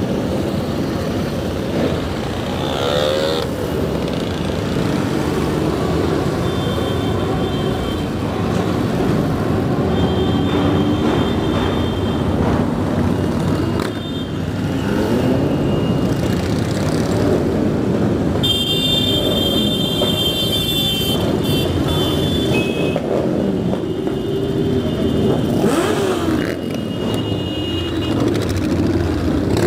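A long stream of motorcycles and scooters riding past one after another, their engines rising and falling in pitch as each one goes by, with brief high-pitched tones now and then.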